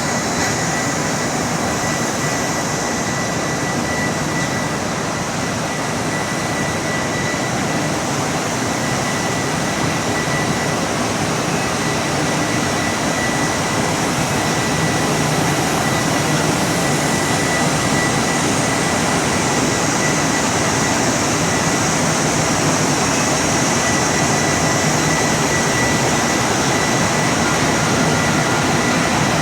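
Open-width oscillating fabric washing machine running: a steady, even mechanical noise with a thin, steady high-pitched tone over it.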